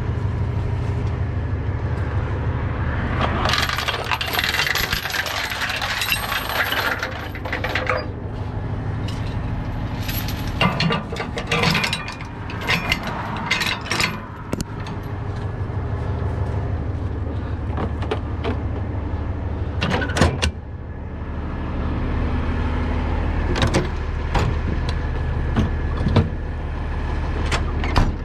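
Truck engine idling steadily throughout. A loud hiss lasts about four seconds early on, then tow chains clink and clank against the axle in a run of sharp metallic knocks, with a few more clanks later.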